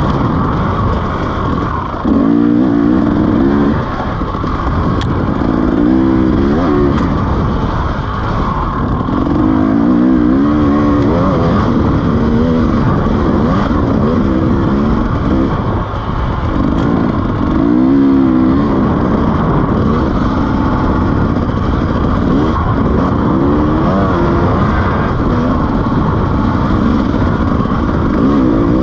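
KTM 300 two-stroke enduro dirt bike under way, the engine repeatedly revving up and dropping back as the rider works the throttle over the trail.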